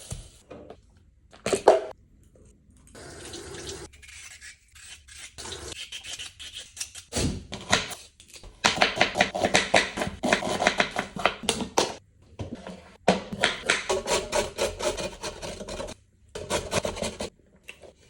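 Kitchen cooking sounds in short cut-together bits: utensils and dishes clinking and scraping, with long stretches of rapid tapping and gaps between the bits.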